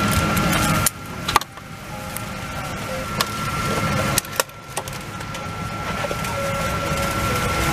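Steady airliner cabin hum with a constant thin whine, broken by a few sharp plastic clicks from a seatback cup holder and in-flight entertainment handset being handled. The hum drops suddenly about a second in and again just after four seconds.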